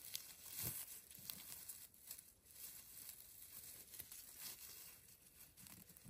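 Faint, irregular rustling and crackling of someone moving through forest undergrowth.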